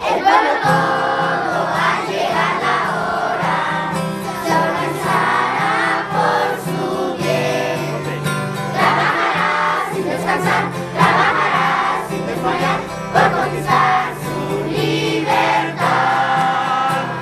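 A group of children singing a school song together, accompanied by an acoustic guitar.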